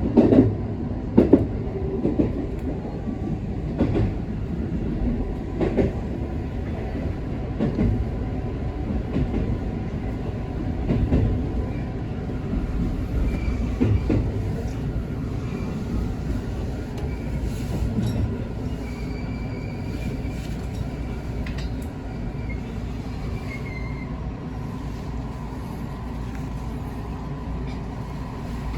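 A JR West 221 series electric train running, heard from inside the leading car: a steady rumble with wheels clicking over rail joints, thickest early on, and a faint wheel squeal in the middle. It grows quieter toward the end.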